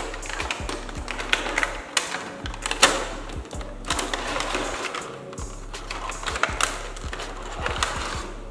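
Cardboard box flaps and a clear plastic packaging tray being handled and slid out, with irregular clicks and rustles, over background music.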